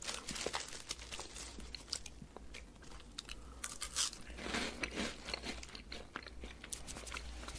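Close-up crunching and chewing of a crisp puffed snack with a cheese-puff texture, with a denser run of crunches about four to five seconds in as another piece is bitten.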